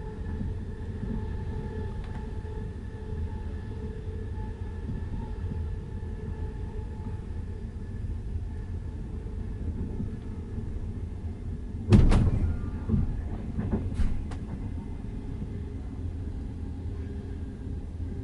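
Passenger train coach in motion, heard from inside: a steady low rumble of wheels on the track. A sudden loud clatter comes about twelve seconds in, and a smaller one about two seconds later.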